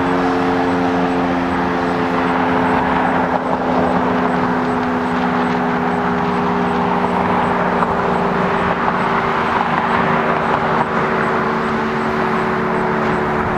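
Federal Signal STH-10 electromechanical tornado siren sounding its noon blast: a loud, sustained chord of several tones, its pitch sagging slowly downward.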